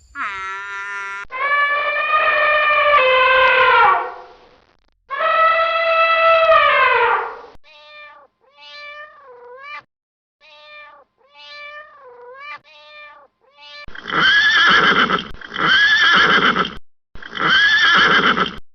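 A string of different animal calls, one after another: two long drawn-out calls that fall in pitch at the end, then a run of short calls that dip in pitch, then three loud, rough calls near the end.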